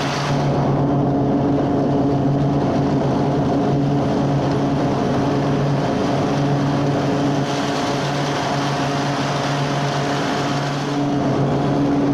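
Exmark Commercial 30 walk-behind mower running steadily while mowing and bagging: an even engine drone under the rush of the blade and clippings.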